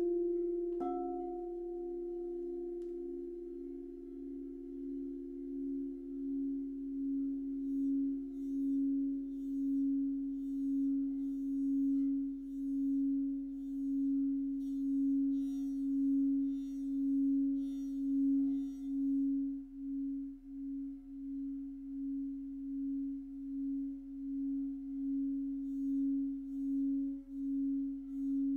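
Quartz crystal singing bowl tapped with a mallet and then sung by circling the mallet around its rim. It gives a steady low hum that swells and dips about once a second, while a higher tone from a bowl played just before fades away over the first several seconds.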